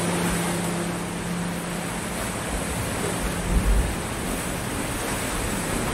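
Small ocean waves breaking and washing up a sandy beach: a steady surf hiss, with a few low rumbles of wind on the microphone a little past halfway.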